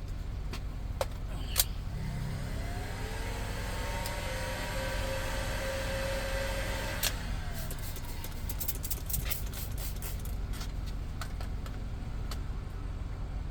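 A small electric motor, likely a heat gun, switched on for about five seconds: its whine rises as it spins up, holds steady, then stops abruptly with a click. A steady low hum runs underneath, and there are scattered light clicks and taps of tools being handled.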